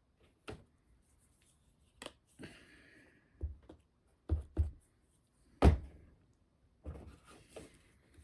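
Small wooden model parts and tools being handled on a workbench: about nine light knocks and clicks as pieces are set down and pressed together, the loudest a sharper knock about two-thirds through, with brief rustling in between.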